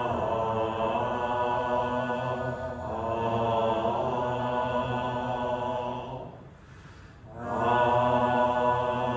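Buddhist sutra chanting on long held notes without instruments, breaking off for a short breath pause about six seconds in, then resuming.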